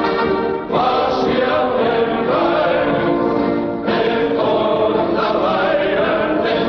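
A national anthem sung by a choir, in slow sustained phrases with short breaks between them.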